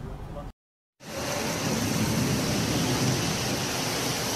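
Heavy rain pouring down in a torrential downpour: a dense, steady hiss of rain. It begins about a second in, after a brief dead gap.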